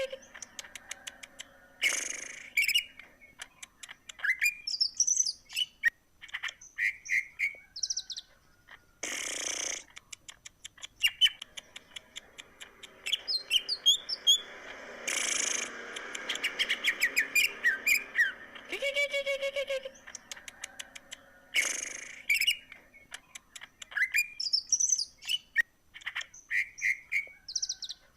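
Green leafbird (cucak ijo) singing at length: a varied stream of whistled glides, rapid trills and ticking runs, broken by a few short harsh, rasping notes.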